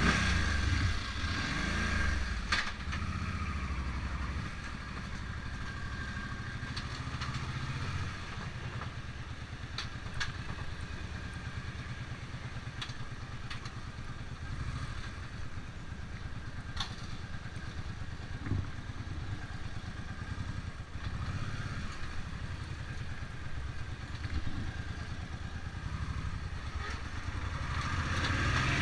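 Motorcycle engine running at low, walking-pace speed with a steady low beat, louder near the start and again near the end as the throttle is opened a little. A few sharp clicks or clanks are heard along the way.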